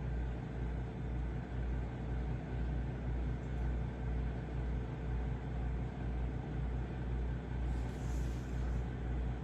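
Microwave oven running, a steady low hum that pulses about twice a second, while it cooks an Oreo mug cake.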